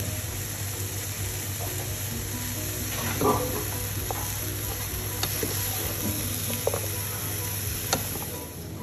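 Jackfruit pieces sizzling steadily in a hot pot while a wooden spoon stirs them, with a few sharp knocks of the spoon against the pot.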